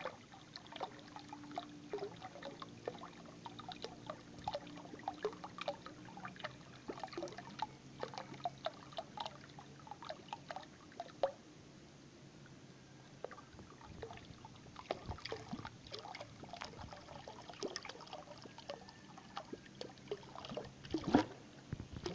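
Thin stream of water pouring into a pool of water, with irregular small splashes and bubble plops. It eases off for a few seconds in the middle and gets louder near the end.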